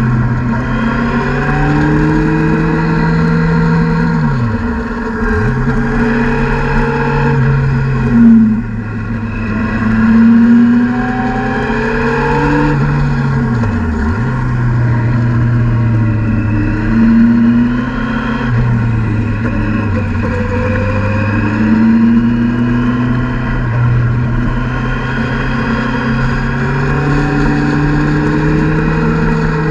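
A motorcycle engine running, heard onboard, its note rising and falling through the bends as it shifts and accelerates. Twice the pitch drops sharply as the throttle closes, then picks up again.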